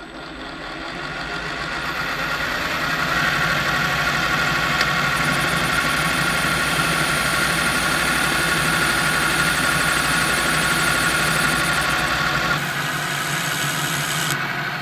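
Metal lathe running as a cutting tool turns the face of a hexagonal steel part, a steady machine sound with a held whine from the cut. It builds over the first few seconds and changes about twelve seconds in, when a flat file is held against the spinning work.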